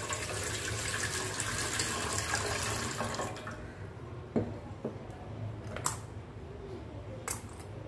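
A glass of water poured into the base of a steel idli steamer pot: a steady splashing rush lasting about three and a half seconds. A few light metal clicks follow.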